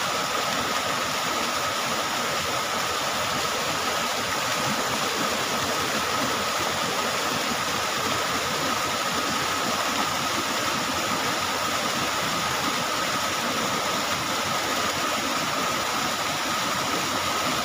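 Steady rush of river water pouring over a small stone weir into a pool, even and unbroken, with a faint steady tone running above it.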